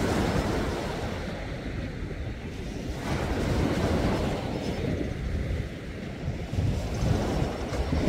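Sea waves washing in and drawing back, a fresh wave surging in about three seconds in, with wind rumbling on the microphone.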